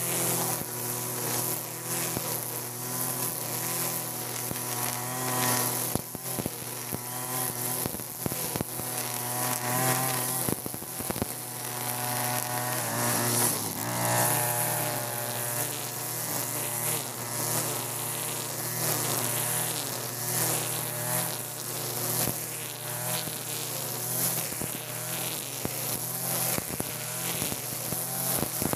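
Two-stroke brush cutter with a nylon-line trimmer head running at high speed and cutting grass, a steady buzz whose pitch dips and rises slightly as the line bites into the grass.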